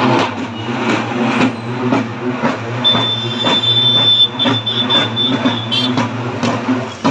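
Procession drumming: large barrel drums beaten with sticks in a steady beat of about two strokes a second. A high steady tone sounds over the drums for about three seconds in the middle.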